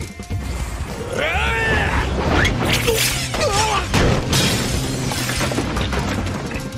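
Anime fight sound effects over background music: glass shattering and several sharp crashing impacts as a body smashes through a glass panel, with wavering pitched sounds around the first crashes.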